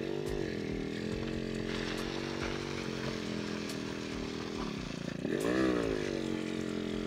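Yamaha RX100's two-stroke single-cylinder engine idling steadily, with a short throttle blip, pitch dipping then rising, about five and a half seconds in.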